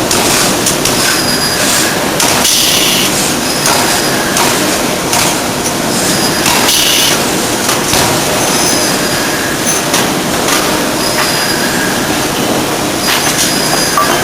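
Ring rolling mill running: steady loud metal-on-metal grinding and rumbling, with high squeals that come and go every second or two, and occasional knocks.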